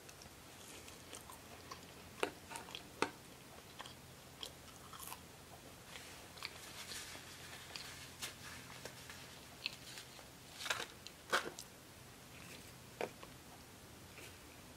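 A person chewing a mouthful of crinkle-cut fries, with soft mouth clicks and smacks scattered throughout and a few louder ones a little past the middle.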